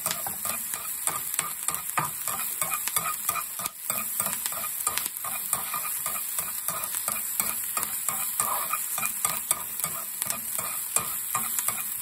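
Diced red onion sizzling in hot oil in a nonstick frying pan, sautéing until fragrant, stirred with chopsticks that click and scrape against the pan many times.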